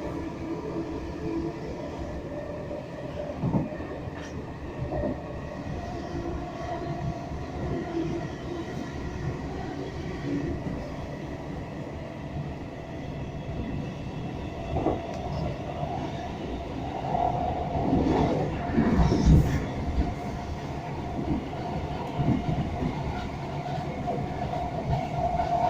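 A class 313 electric multiple unit heard from inside the carriage, running and slowing toward a station. There is steady wheel and track rumble with occasional knocks. A louder rattle comes about two-thirds of the way through, and a steady high tone sets in near the end.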